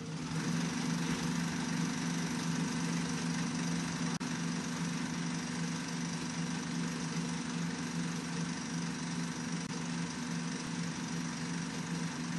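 Film projector running: a steady mechanical whir with hiss and a slight flutter.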